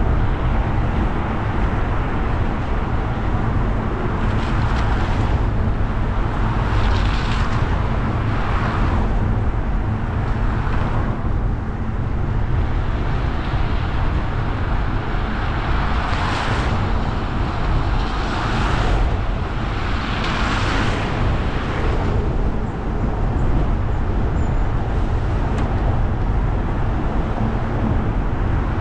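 A car driving on a rain-wet road: steady low road and engine rumble, with swells of tyre hiss on the wet surface rising and fading several times as other vehicles pass.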